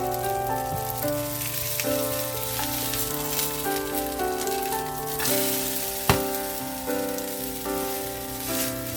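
Food sizzling in a hot frying pan, a steady hiss, under background music with a melody. A single sharp knock about six seconds in.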